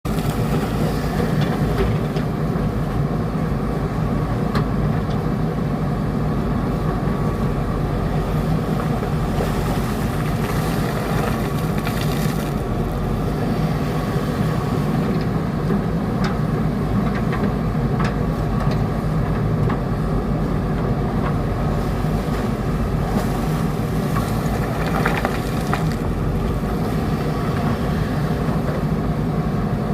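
JCB backhoe loader's diesel engine running steadily as it works, with a few short sharp knocks scattered through.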